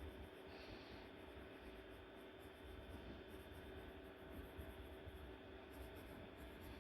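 Faint scratching of drawing strokes, irregular and continual, over a steady low room hum.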